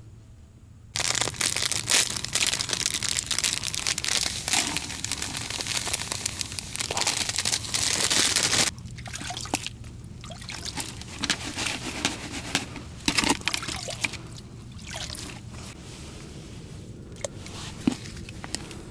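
Groundbait being handled and poured: crinkling of its packaging and a trickling, pouring sound for the first half, then quieter rustling and scattered small clicks.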